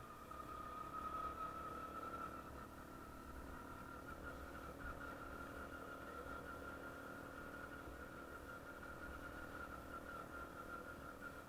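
Small 72cc engine of a children's ATV running faintly at a steady speed, a steady whine with a slight waver.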